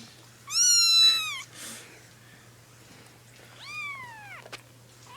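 Three-week-old kitten meowing: a loud, high, thin cry that rises and falls about half a second in, then a fainter one near the end.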